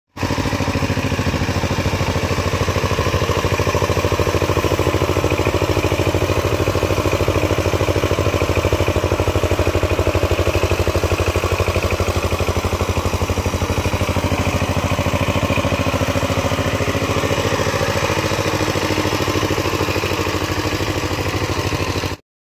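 Single-cylinder diesel engine of a two-wheel walking tractor running steadily under load in a flooded rice paddy, with an even, rapid beat of firing strokes.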